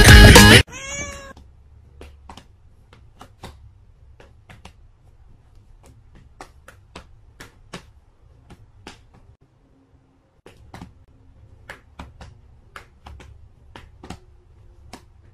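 Loud background music cuts off just under a second in. A cat meows once, a short call that rises and falls in pitch, followed by a long run of faint, irregular clicks and taps over a low hum.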